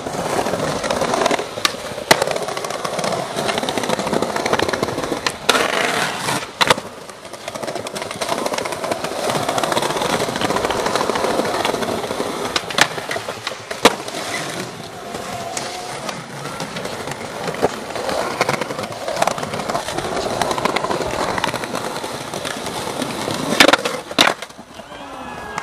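Skateboard wheels rolling over stone paving slabs, with several sharp clacks of the board popping and landing. Near the end comes the loudest clack, as the board hits a stone ledge and slides along it.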